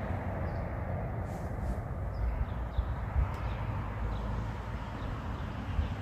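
Steady low outdoor rumble, with a few faint short high chirps and a couple of soft clicks; the siren is not sounding.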